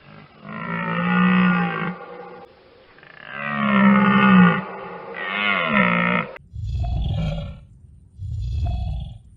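Animal calls: three long, drawn-out pitched calls, then a change to two low, rumbling growls from a different animal.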